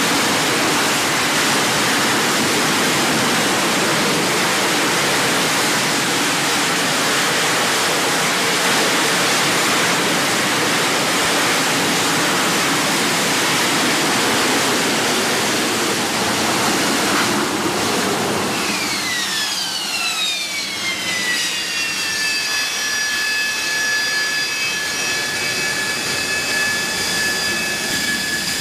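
AV-8B Harrier's Pegasus turbofan at high hover power, a loud even rush of jet noise. About two-thirds of the way through, the engine spools down: a whine falls in pitch over a few seconds, then holds as a steady high whine at low power once the jet is on deck.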